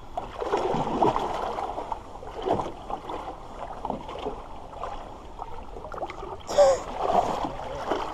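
Water sloshing and splashing in a shallow river, uneven and continuous, with one louder splash-like noise about six and a half seconds in.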